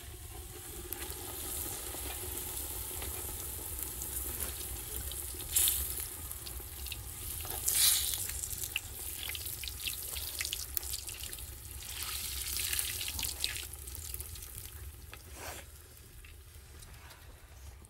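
Boolani, a stuffed flatbread, sizzling as it deep-fries in a pot of hot oil, with scattered crackles and spits and louder spurts about six and eight seconds in and again around twelve seconds.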